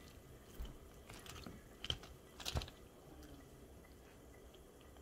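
A few faint, short crackles of aluminium foil being handled, four of them in the first three seconds.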